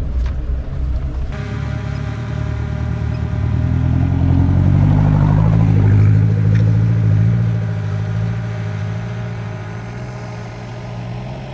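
Off-road 4x4 vehicle's engine running steadily on a mountain track. It grows louder through the middle and eases off toward the end.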